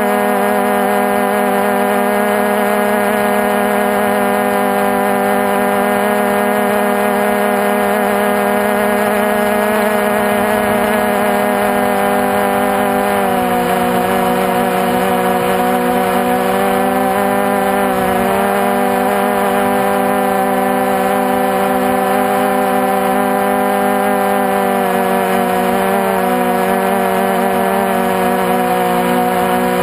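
Multirotor drone's electric motors and propellers running in flight, recorded from on board: a steady, loud droning hum of several pitches together. The pitch shifts about halfway through and dips briefly twice later as the motor speeds change.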